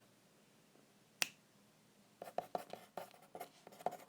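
One sharp click about a second in, then a quick, irregular run of light taps and clicks, several a second.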